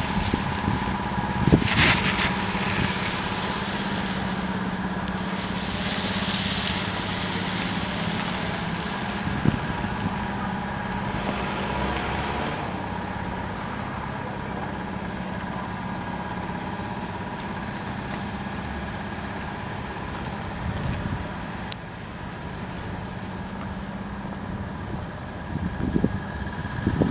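Nissan NV350 Caravan van's engine idling with a steady hum, broken by a few brief knocks.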